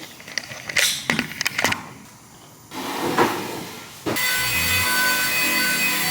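Household cleaning sounds: a few knocks and clicks of things being handled, and rubbing against cupboard wood. About four seconds in, a loud steady rushing noise with a faint whine starts.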